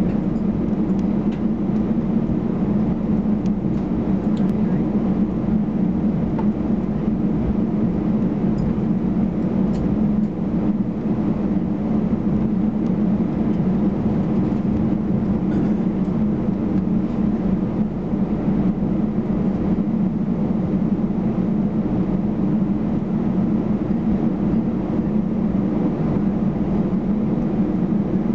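Steady drone inside the cabin of an Airbus A319-112, its CFM56 turbofan engines at idle thrust while the airliner taxis, with a few faint ticks and rattles early on.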